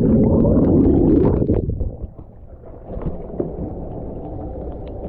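Muffled rushing and bubbling of water picked up by an action camera held underwater, loud with a deep rumble for about the first two seconds. It then drops to a much quieter steady hum with a few faint ticks once the camera is back above the surface.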